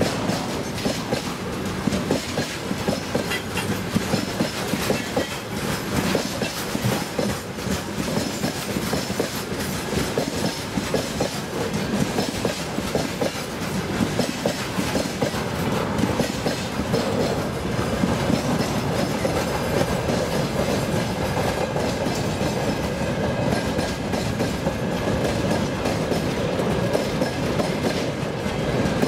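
Freight train of boxcars and hopper wagons rolling past, its wheels clattering over rail joints in a steady, uneven clickety-clack over a continuous rumble.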